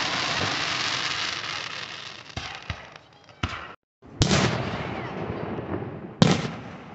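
Aerial fireworks shells bursting. Crackling from a burst fades over the first few seconds, then come several sharp bangs. The loudest two, about four and six seconds in, each trail off into crackling. The sound cuts out completely for a moment just before the four-second bang.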